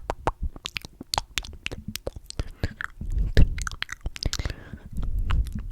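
Close-miked wet mouth sounds: rapid sticky lip smacks and clicks from glossed lips, with dull low thumps about three seconds in and again near the end.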